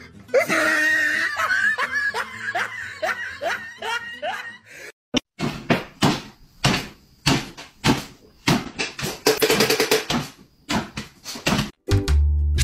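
A girl laughing in a string of short rising bursts, then a quick run of short, sharp yaps from small dogs jumping about excitedly at feeding time. Background music with a heavy beat comes in near the end.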